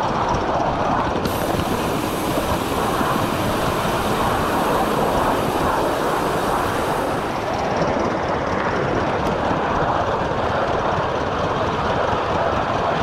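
Gauge 1 model train running on garden railway track: a steady rolling rumble of wheels on the rails.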